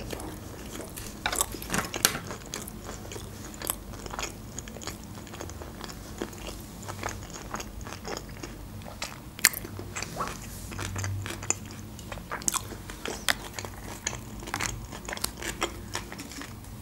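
Close-miked chewing of a crisp fried mouthful, with irregular crunches and wet mouth clicks.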